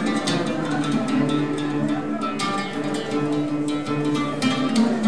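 Live band music in a Middle Eastern belly-dance style: a plucked-string melody with held notes, over hand drums and a drum kit keeping a steady beat.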